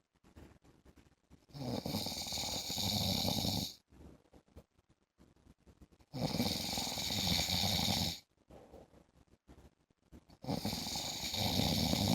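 A man snoring in a slow, regular rhythm: three long snores, each about two seconds, roughly four and a half seconds apart, with quiet gaps between.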